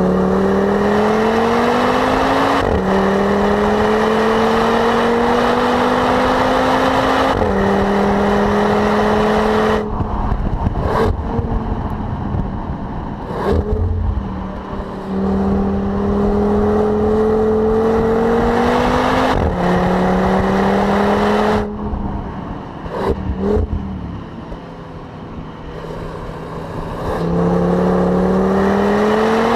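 Audi RS Q3's turbocharged five-cylinder engine driven hard on track. Its note climbs steadily in each gear and drops sharply at quick upshifts. Twice it lifts off, with a few short sharp cracks as it slows; after the second lift it runs quieter for a few seconds, then pulls again near the end.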